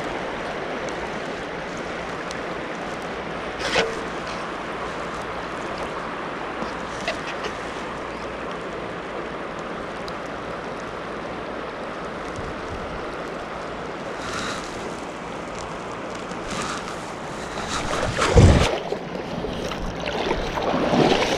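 Steady rushing of a shallow river running over stones around the wading angler. Near the end comes a loud low splash or thump, followed by choppier water noise.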